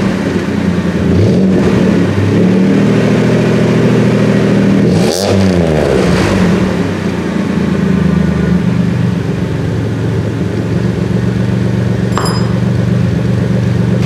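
Turbocharged GM 3100 V6 running through its exhaust, fitted with a newly made short passenger-side exhaust manifold, just fired up to check for exhaust leaks. The engine speed rises and dips about five seconds in, then settles to a steady idle, with a brief sharp click or squeak near the end.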